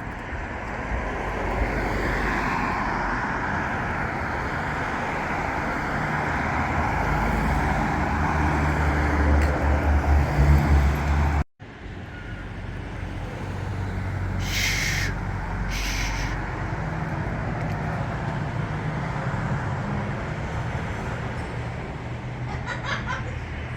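Street traffic running past: a vehicle's engine rumble swells to its loudest about ten seconds in, then after a sudden break the traffic noise goes on steadily, with two short hisses a little later.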